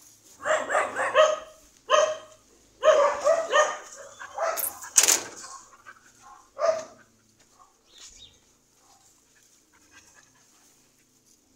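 Dog barking in quick runs of several barks, with a sharp clack about five seconds in and a last single bark near seven seconds.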